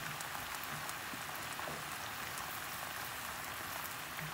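Onions cooking with a little water in a cast iron skillet under a layer of sliced yellow squash: a steady sizzling hiss with faint scattered pops.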